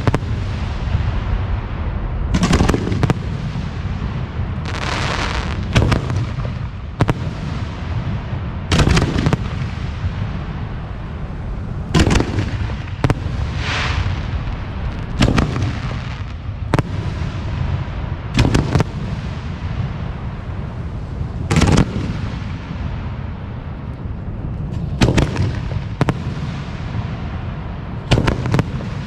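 Professional 4- to 6-inch aerial firework shells bursting one after another, a loud boom every one to three seconds. A few bursts trail off in a hissing crackle.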